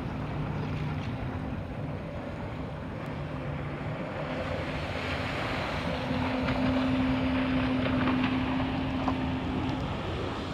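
A jet ski's engine running at speed, with the hiss of its spray and wind buffeting the microphone. It grows louder for a few seconds past the middle as the jet ski passes nearest.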